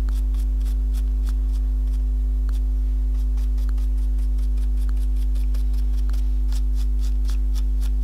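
Short scratchy strokes of a small paintbrush dry-brushing pigment over a textured plaque, several quick ticks a second, over a steady low hum.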